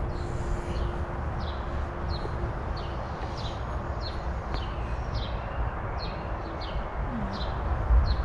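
Small birds chirping, short high downward chirps repeating about twice a second, over a steady low rumble.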